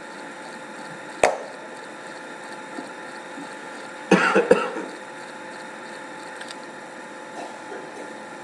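Quiet steady hiss of room tone, broken by a single sharp knock about a second in and a short throat-clearing sound about four seconds in.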